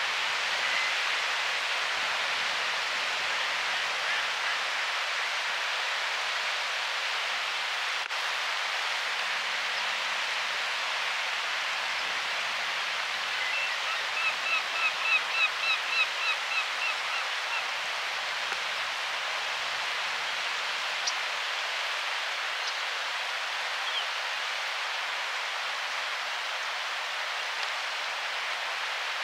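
Steady rush of flowing water. About halfway through, a bird calls a quick series of about a dozen short notes, three or four a second, for some four seconds.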